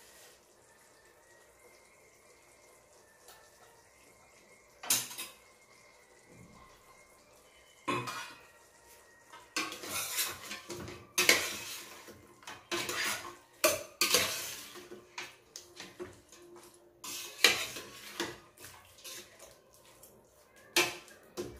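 Metal slotted spoon scraping and clinking against a stainless steel pot while chicken pieces are stirred. A quiet start, a couple of single clanks, then about ten seconds of busy irregular scraping and clattering.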